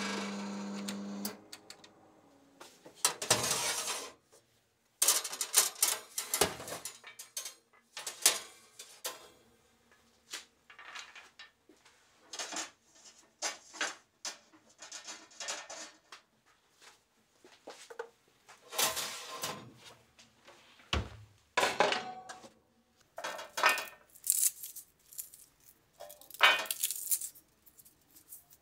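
Roasted hazelnuts rattling and rolling on a metal baking tray as it is drawn from the oven and handled, with clinks and clatter of the tray and oven rack; a steady hum stops about a second in. Near the end, hands rub the nuts on the tray to loosen their skins.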